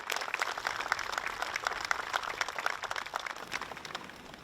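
Audience applauding, a dense patter of hand claps that fades out shortly before the end.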